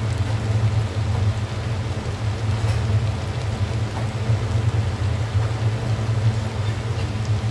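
Steady low rumble with a light crackling hiss, as of a gas burner heating a large stainless-steel stockpot of spaghetti.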